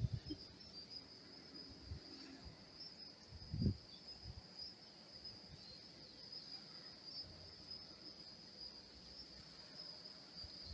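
Steady high-pitched chorus of insects, likely crickets, with a brief low thump about three and a half seconds in.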